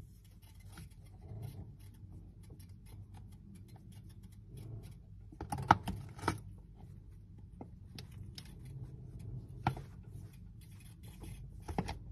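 Soft scratching and rustling of fingers rubbing a prairie dog's fur, with a few sharp clicks, the loudest around the middle and another near the end.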